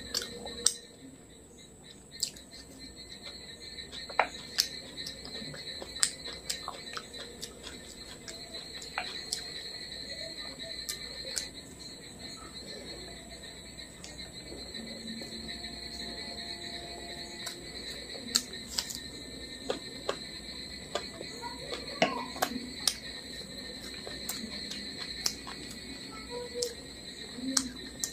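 Close-miked eating sounds: sharp mouth clicks and smacks, scattered irregularly, as rice and fried fish are eaten by hand. A steady high-pitched whine runs underneath.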